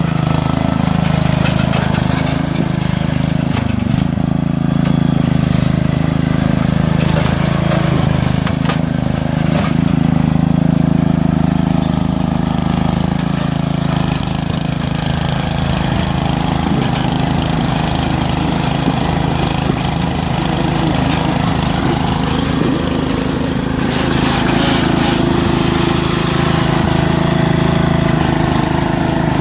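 Riding lawn mower's small engine running hard at full throttle, a steady loud drone that shifts slightly in pitch as the mower works.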